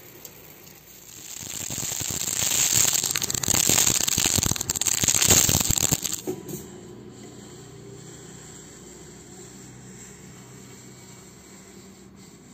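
Dry wheat grains poured into a steel pot, a dense rattling patter of many small grains on metal that swells, holds for a few seconds and stops about six seconds in. A faint steady hum follows.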